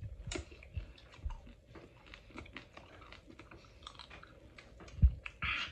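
Close-up chewing of a piece of tanghulu, candied fruit in a hard sugar shell: a run of small, sharp crunches and sticky mouth clicks, with one louder thump about five seconds in.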